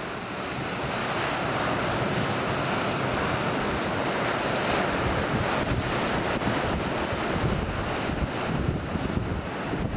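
Ocean surf breaking in a steady rush, growing louder about a second in, with wind buffeting the microphone in uneven low gusts.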